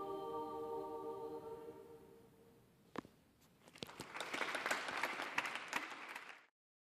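A cappella girls' vocal trio holding a final chord that fades away over about two seconds. A single clap comes about three seconds in, then audience applause from about four seconds in, cut off abruptly near the end.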